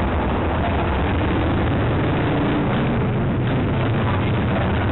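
Motorcycle engines idling: a steady, unbroken low rumble.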